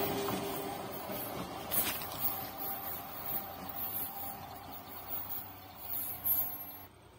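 Indian Railways electric multiple unit train running away into the distance, its rumble and a faint whine steadily fading, with a few short rushes of noise. The sound cuts off abruptly near the end.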